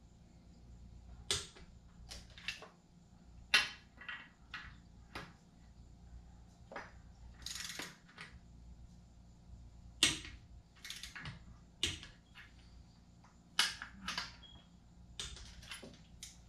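Ratchet wrench clicking, with tool-on-metal clinks, as bolts on a 2JZ engine are tightened to torque spec. The clicks are sharp and separate, come at irregular intervals, and a few fall in quick pairs.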